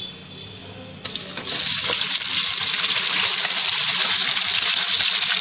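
Raw beef chunks going into hot oil with whole spices and frying: a hiss starts about a second in and half a second later becomes a loud, steady sizzle.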